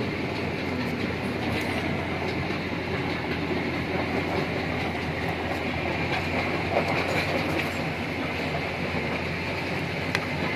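A steady mechanical rumble with a constant low hum, and a few faint clicks.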